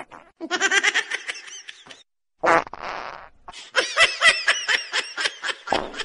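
Comedy sound effects laid over the clip: a fart noise and fast, pulsed laughter, in three bursts with short gaps.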